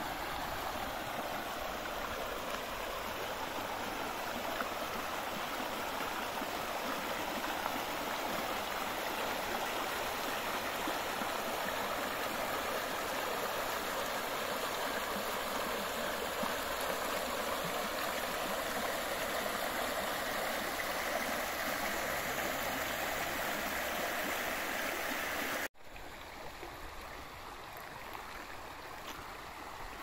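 Steady rush of the Bzyb river's water flowing along its channel. About 26 seconds in it cuts out for an instant and comes back slightly quieter.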